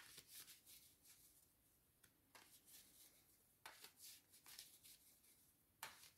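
Faint, brief rustles and flicks of a deck of reading cards being handled, a few scattered strokes over near silence.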